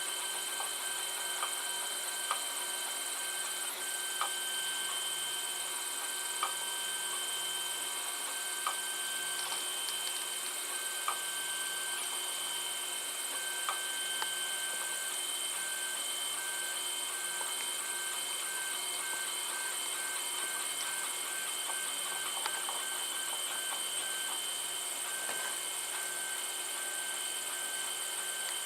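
Protomaker FDM 3D printer running a print: a steady motor hum and whine from its stepper motors and fan, with a few light ticks here and there.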